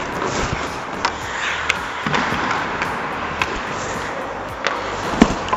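Ice hockey play: skates scraping on the ice, with scattered sharp clacks of sticks and puck, the loudest a little after five seconds in.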